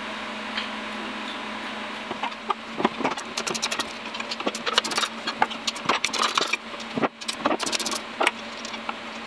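Metal hand tools clicking and clinking as bolts on the steel mounting flange of a burner blower motor are turned with an Allen key. The clicks come in short rapid clusters from about two seconds in, over a steady hum.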